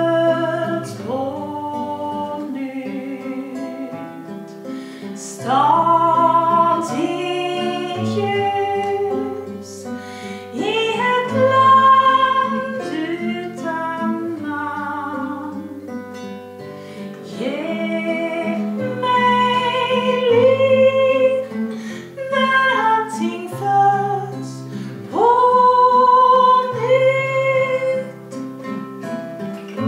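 A woman singing a slow song, accompanying herself on a strummed acoustic guitar; her long held notes waver slightly.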